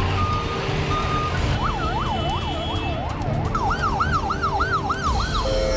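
Emergency vehicle siren sweeping up and down, the sweeps speeding up about halfway through, over a steady low rumble. Two short beeps come just before the siren starts.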